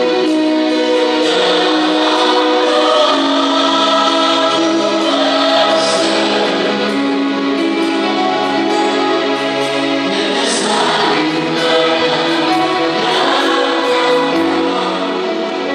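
A mixed chamber choir of women and men singing a song in parts, with long held notes.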